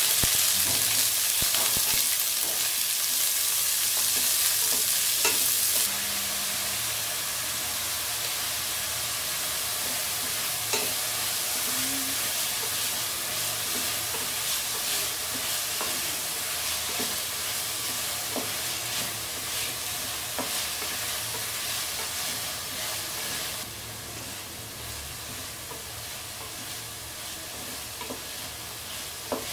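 Chopped onions sizzling in hot oil in a metal pot while a spatula stirs them, with scattered clicks of the spatula against the pot. The sizzle is loudest for the first few seconds, then drops a step about six seconds in and again near the end.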